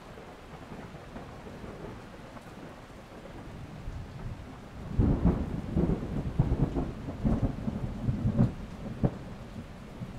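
Thunderstorm: steady rain, then a loud roll of thunder about halfway through, rumbling and crackling with sharp cracks before it dies away near the end.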